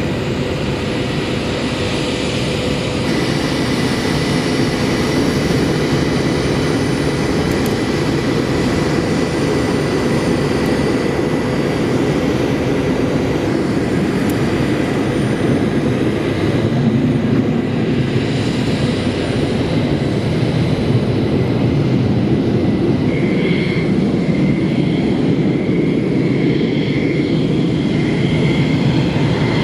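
Fighter jet engines running on the airfield: a loud, steady jet noise. Near the end a high whine joins in as an F-16C taxis at low power.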